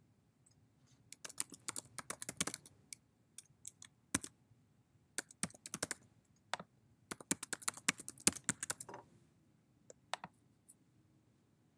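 Computer keyboard keys clicking in quick runs of typing, with short pauses between runs, and a few single clicks near the end.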